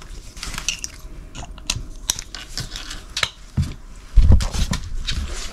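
Clicks, rattles and rustling of a nylon dog harness being fitted and its buckles fastened, handled right against the microphone. About four seconds in, a heavy low rumble of fabric rubbing on the microphone takes over as the loudest sound.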